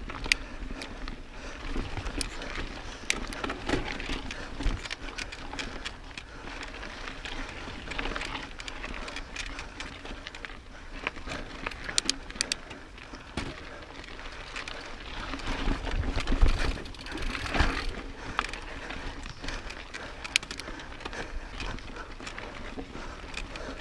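Mountain bike rolling over a rocky dirt trail: tyres crunching on dirt and rock, with frequent clicks, knocks and rattles from the bike. There is a louder, rougher stretch about two-thirds of the way through.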